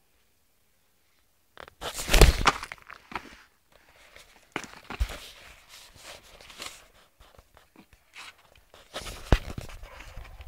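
Rustling and brushing of a child's cotton hoodie against the microphone, with scuffs and a few sharp thumps of the camera being bumped. It starts out of near silence about a second and a half in and comes in uneven bursts.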